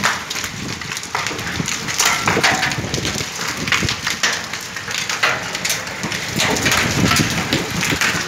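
Heavy rain falling on a wet paved courtyard: a loud, dense patter of countless drop impacts with a crackling edge.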